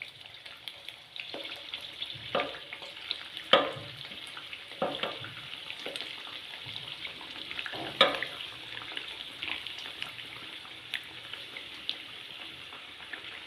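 Pea and wheat-flour tikkis frying in hot oil in a kadhai: a steady sizzle, with a few sharp knocks of a utensil against the pan.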